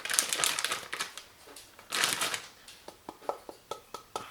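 Glutinous rice flour being scooped and poured into a mixing bowl: two rustling, scraping bursts, then a few light taps.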